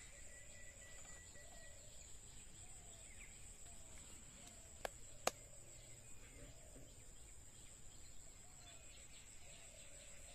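Faint outdoor ambience: a steady high-pitched insect drone with faint scattered bird calls, and two sharp clicks close together about five seconds in.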